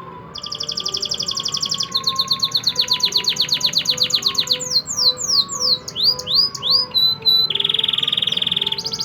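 Canary song: fast, high trills, then a run of swooping up-and-down notes, then a steady buzzing roll about three quarters of the way in, with the trill starting again at the end.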